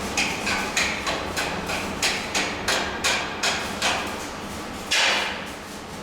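A hammer striking repeatedly, about a dozen quick blows at roughly three a second. About five seconds in comes a single louder, longer rasp.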